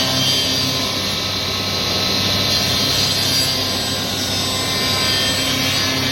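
Five-axis woodworking CNC router machining wood: a steady cutting and spindle noise with no breaks.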